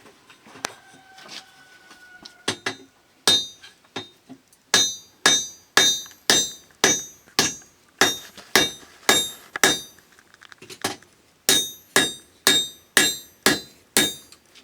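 Blacksmith's hammer striking iron on an anvil, forging out a spade blade: a steady run of ringing metallic blows, about two a second, with a short pause about ten seconds in before the hammering resumes.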